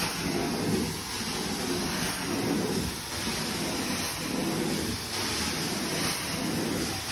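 Carpet-cleaning extraction wand spraying and sucking water back out of the carpet through its vacuum hose: a steady rush of suction that swells about once a second with each stroke of the wand across the pile.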